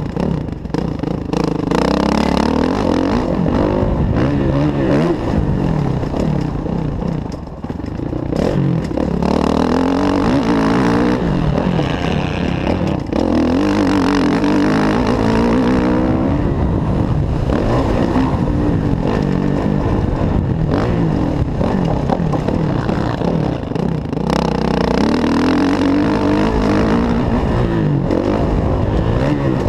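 Kawasaki KX450F's single-cylinder four-stroke engine under load on a motocross track, its note climbing and dropping repeatedly as the throttle is opened and shut through corners and straights.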